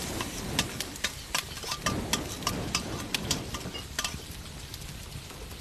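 Kitchen utensils clicking and clattering irregularly, several times a second, over a steady sizzling hiss of cooking.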